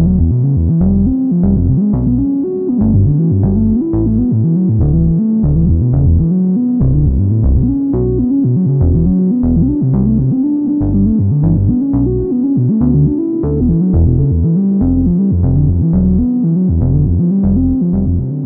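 Background music: a synthesizer and keyboard tune over a steady beat and a pulsing bass line.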